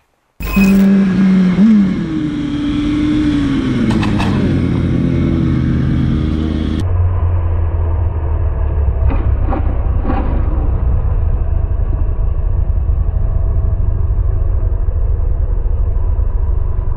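Motorcycle engine sounds. First an engine revving, its pitch rising and falling. After a sudden change about seven seconds in, a sport bike rolls slowly with its engine running under a steady low rumble.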